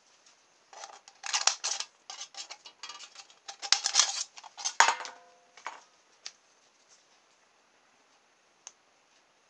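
Scissors cutting through the thin aluminium wall of a drinks can: a run of crackling snips and crinkles lasting about five seconds, with a short metallic ring near the end of it. A couple of light clicks follow.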